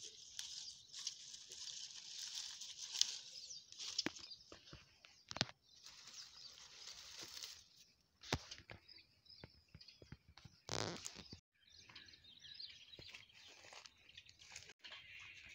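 Faint outdoor ambience with birds chirping, broken by scattered short clicks and rustles of leaves and stems.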